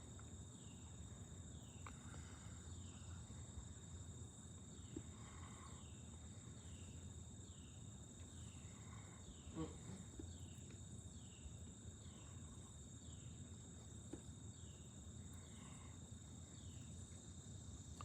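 Faint insect chorus: a steady high buzz with a short falling chirp repeating about once a second.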